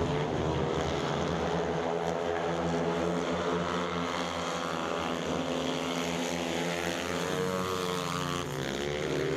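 Speedway motorcycles, 500 cc single-cylinder methanol engines, racing together at full throttle with a steady, many-toned drone. Their pitch dips and then climbs again near the end.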